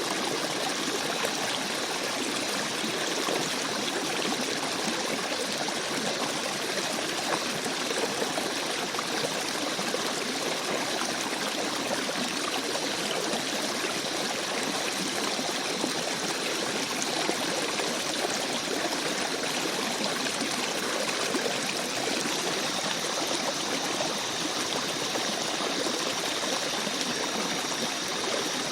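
A babbling forest brook: water flowing and burbling steadily over stones, an even rushing with fine trickling detail.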